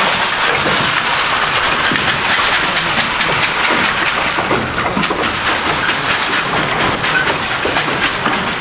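Dry goat feed pouring from a plastic bucket into a long wooden feed trough: a steady, loud rattling hiss of many small pieces striking wood as the pour moves along the trough.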